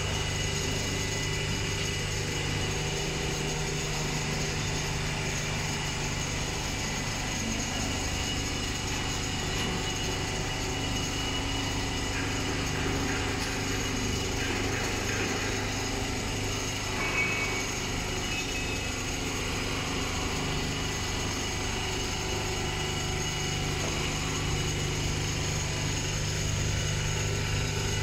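Computer-controlled quilting machine running steadily as its sewing head stitches a stretched fabric, a continuous mechanical hum with several steady tones.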